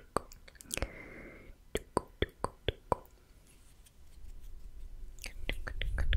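Slow ASMR mouth sounds close to the microphone: a run of wet tongue-and-lip clicks, the 'tk tk' kind, with a short hissed breath about a second in. The clicks pause for about a second in the middle, then pick up again with breath on the microphone near the end.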